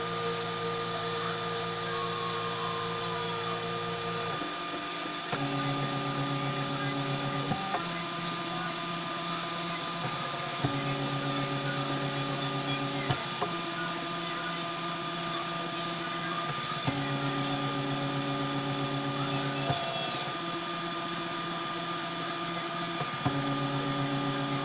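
Homemade 3D printer's stepper motors whining steadily as it prints. The pitch jumps to a new note every two to four seconds as the print head changes direction, with a faint click at some of the changes.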